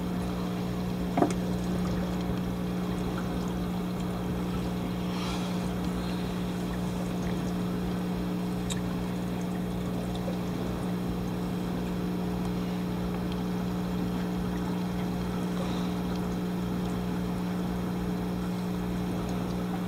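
Steady hum of aquarium equipment running in a fish room, with a faint watery hiss and one small click about a second in.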